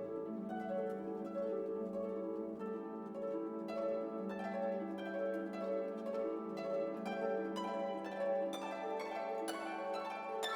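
Background instrumental music: plucked notes over held tones, the plucking growing busier in the second half.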